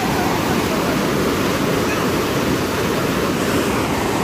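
Fast, muddy whitewater river rushing over boulders close by: a dense, steady rush of water that holds one level throughout.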